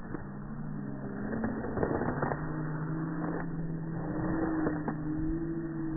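A steady low motor hum, like an engine running, with a few faint clicks scattered through it.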